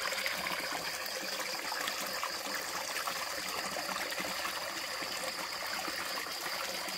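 Small stream of water running steadily over rocks, with splashing as someone washes their hands, feet and face in it.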